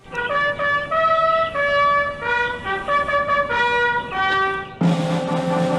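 Brass band playing a melody led by trumpets, in held notes that change every half second or so. About five seconds in, the full band comes in with a louder sustained chord.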